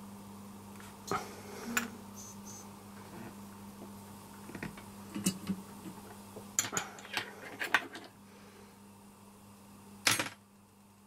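Small hand tools and parts clicking and tapping on a workbench during fine soldering work: a couple of taps about a second in, a flurry of quick clicks in the middle and one louder knock near the end, over a steady low hum.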